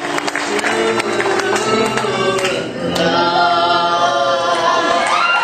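Audience applauding and cheering, with many voices holding long whoops over the clapping that build up about halfway through.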